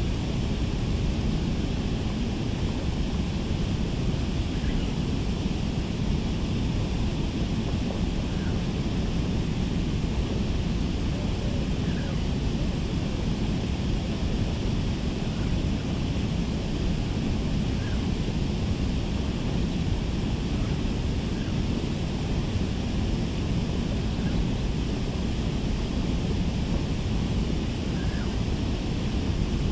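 Steady rushing noise of water flowing through a concrete weir, with faint short chirps now and then.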